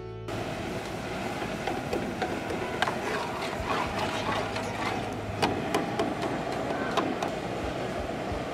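Boondi frying: drops of gram-flour batter falling into hot oil, a steady sizzle with sharp crackles or clicks every second or so.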